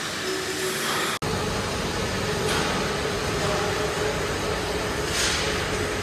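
Steady mechanical rumble and hiss of machinery running in a factory, with a faint steady hum, a brief break about a second in and a few short hissing surges.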